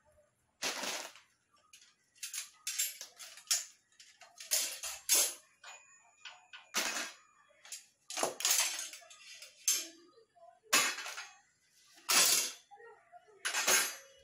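Metal rods and frame of a black wire kitchen rack being handled and set down on a table: irregular clinks, knocks and scrapes of metal, some ringing briefly.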